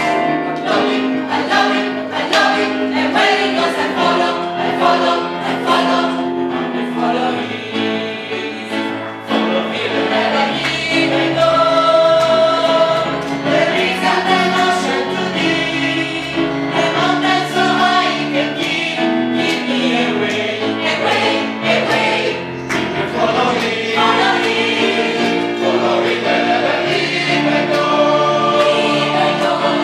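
Gospel choir singing in full voice, many voices together with a steady beat underneath.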